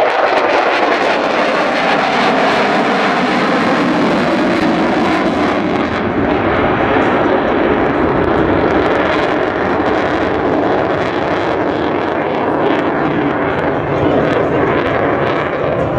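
Loud, steady jet noise from the F-22 Raptor's twin Pratt & Whitney F119 turbofan engines as the fighter flies its display.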